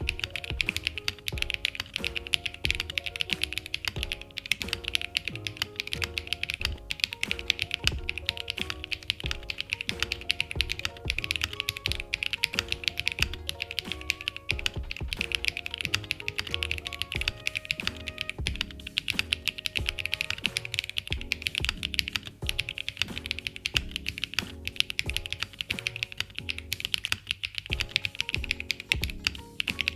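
Continuous fast typing on a custom mechanical keyboard fitted with Kailh BCP switches, a dense run of key clacks.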